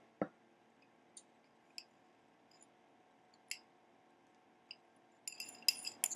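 Kitchen utensil against a mixing bowl: a knock near the start, a few faint scattered taps, then a quick run of clinks and scrapes near the end as the bowl is scraped out.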